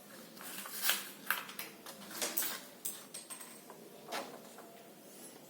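A string of light clicks, taps and rustles of things being handled, most of them in the first three seconds and one more about four seconds in.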